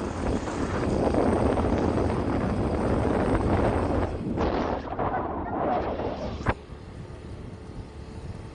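Wind buffeting the microphone over the low rumble of a moving vehicle. A sharp click comes about six and a half seconds in, after which only a much quieter steady noise remains.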